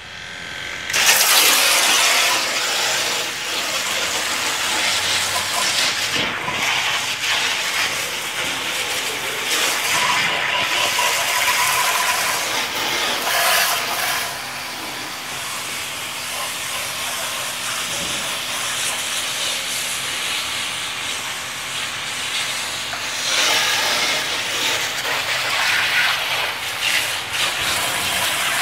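Water jet from a portable 12V pump's spray gun hissing as it hits a foam-covered scooter and rinses the snow foam off. The jet starts about a second in, and its level rises and falls as the spray moves over the bodywork.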